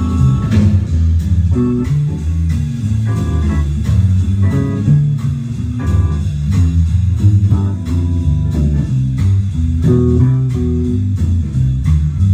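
Music: a bluesy tune on guitar and bass guitar over a steady beat.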